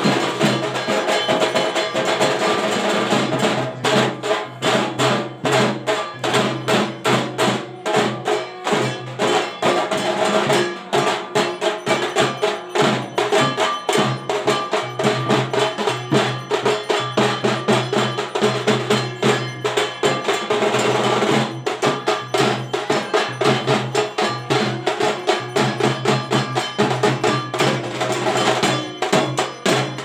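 Percussion music at a fast, even beat of about four strokes a second, with drum-like hits and clanking, bell-like strikes over a steady pitched background.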